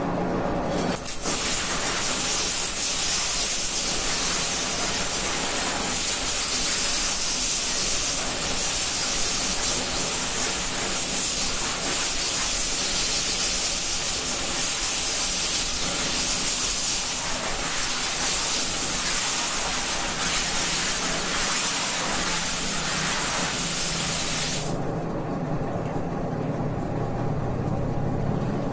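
Water spraying steadily in a loud hiss, which stops about 25 seconds in, leaving a quieter, lower sound.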